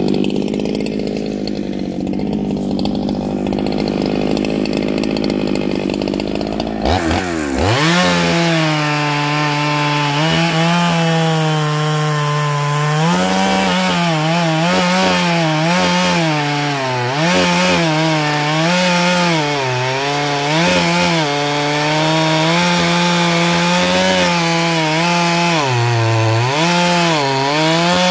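Large Neo-Tec two-stroke chainsaw cutting through a big log. After several seconds of a steadier, lower running sound, it revs sharply to full throttle about seven seconds in, and the engine note then dips and recovers again and again as the chain bites into the wood.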